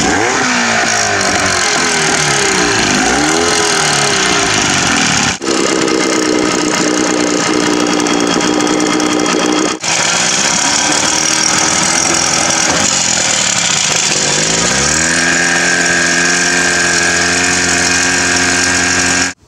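Outboard motor running and being revved, its pitch swooping up and down. It is steadier for a few seconds, then climbs about fifteen seconds in and holds at high revs as the boat gets under way. There are two brief breaks, about five and ten seconds in.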